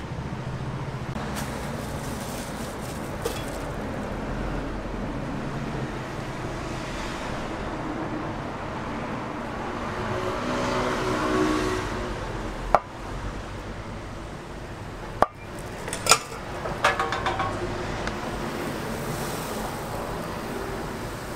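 Steady street traffic noise, with a few sharp clicks or knocks a little past the middle.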